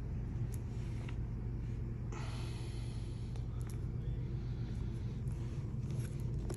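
A steady low hum, with a short rustle of a stiff horsehide leather jacket being handled and opened about two seconds in.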